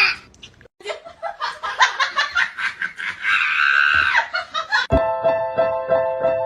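A person laughing in quick, uneven bursts. About five seconds in it cuts off sharply and piano music begins.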